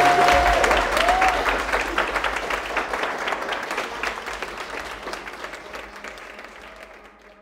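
Wedding guests applauding, the clapping fading away gradually.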